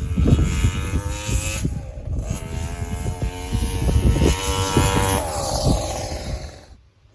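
Two-stroke chainsaw engine of a homemade motorized bicycle with an expansion-chamber exhaust, running hard under way. The revs climb, dip briefly about two seconds in, then climb again, and the sound drops away abruptly near the end.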